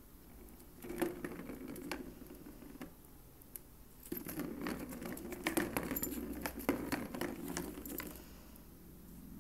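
A plastic ball rolling and rattling around the plastic track of a circular cat toy, with clicks and taps as a cat bats at it and paws the cardboard scratch pad. It comes in a short bout about a second in and a longer, busier one from about four to eight seconds in.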